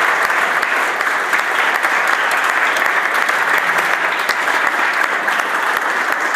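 Sustained applause from a roomful of people standing and clapping, a steady dense patter of many hands.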